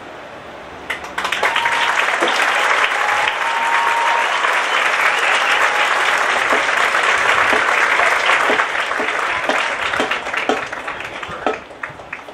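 Audience in the stadium stands applauding at the end of a marching band show. The clapping breaks out about a second in, stays loud and dense, then thins to scattered claps near the end.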